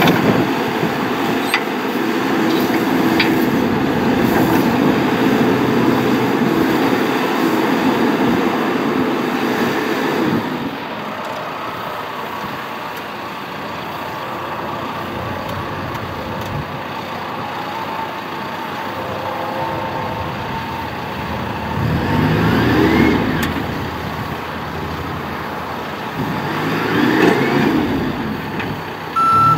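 John Deere 310SK backhoe loader's diesel engine running, its pitch rising and falling back twice in the second half as it is revved under load.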